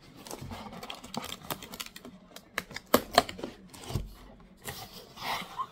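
A cardboard keyboard box and its packaging being opened by hand: a run of scraping, tearing and rustling with sharp clicks and taps. There is a low thump about four seconds in.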